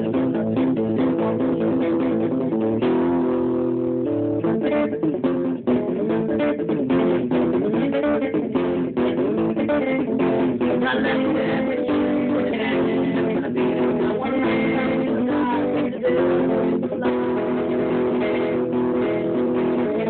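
Black single-cutaway electric guitar played in a continuous stream of picked notes and chords that move quickly up and down in pitch.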